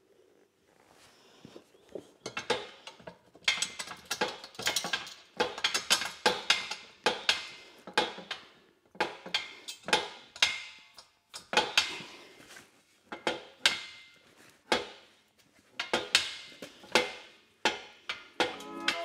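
Irregular metallic clinks and knocks, in quick clusters, from steel bale-trailer frame parts and hardware being handled and fitted together by hand.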